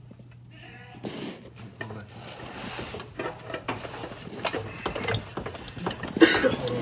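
Hand socket ratchet on a long extension clicking as bolts are worked, with irregular metal tool clinks and knocks. A short scraping rush comes near the end.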